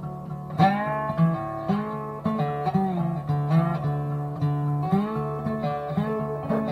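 Background music: a guitar playing plucked notes, many of them bending in pitch, over a steady held low note.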